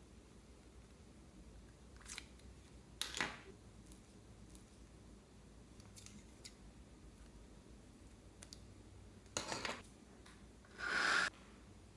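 Four short handling noises, likely from slime being played with or cut, over a quiet room hiss; the loudest comes near the end.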